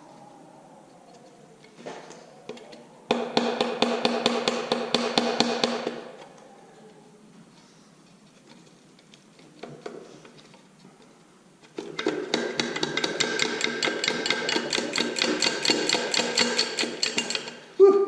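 Power impact wrench hammering in two bursts of rapid, evenly spaced blows, about three seconds in and again about twelve seconds in, working fasteners on an engine block.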